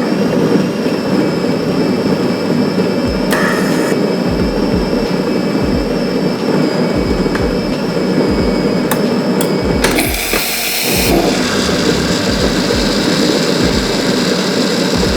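Built-in coffee grinder of a Saeco Magic M1 super-automatic espresso machine grinding beans, a steady loud whir with a thin high whine. About ten seconds in the whine stops and there is a short hiss, then the machine runs on; the grind is done in two steps to reach a 15-gram maximum-strength dose.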